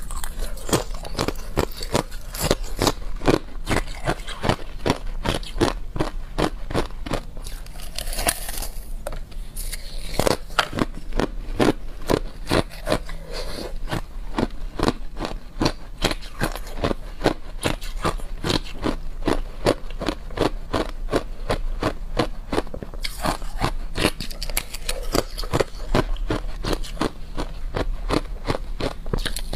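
Clear ice being chewed and crunched between the teeth: a steady run of sharp, crisp cracks, several a second.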